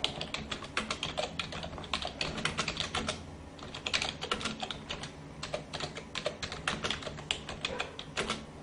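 Computer keyboard typing: a rapid, irregular run of key clicks, with a faint steady low hum underneath.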